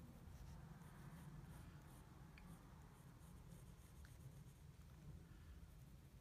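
Faint scratching of a pen tip drawing short strokes on lined notebook paper, over a low steady hum.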